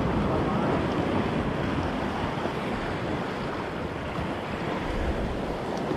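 Steady rushing noise of the sea and wind, with wind buffeting the microphone.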